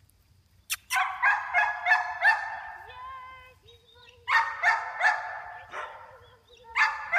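Small dog yapping: three quick runs of high-pitched barks, a few a second, after a brief quiet start.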